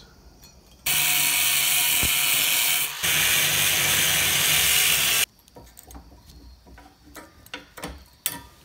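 Angle grinder with a cutoff wheel cutting through a steel mounting bracket: about four seconds of loud, steady grinding with a brief dip partway through, then it stops abruptly. Afterwards, light metal clicks and taps.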